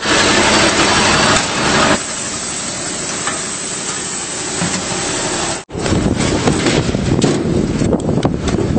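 Rustling and scraping hiss from a body-worn camera being jostled as its wearer moves around and onto a truck trailer. A few knocks come in the last few seconds, and the sound breaks off abruptly about two-thirds of the way through.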